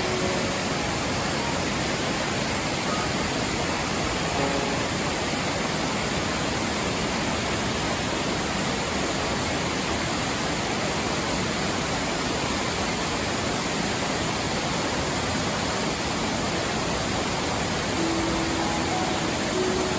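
Steady, even rush of a waterfall, with a few faint soft music notes near the start and again near the end.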